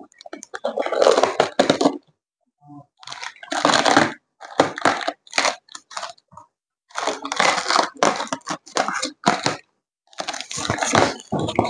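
F-clamp packaging being torn and crinkled open in bursts of crackling rustle, with sharp clicks and knocks among them and short silent pauses between.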